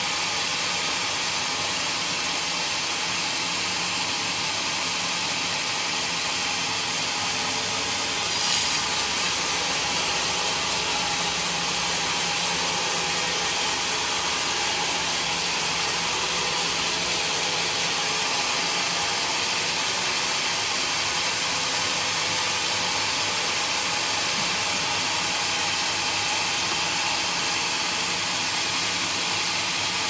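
Sawmill band saw ripping a mahogany beam: a steady hissing cut with the machine running underneath, and a short click about eight and a half seconds in.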